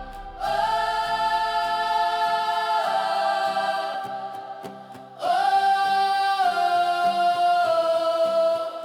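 Choir singing a slow hymn in long held notes, the pitch stepping to a new note every few seconds, with brief breaks between phrases.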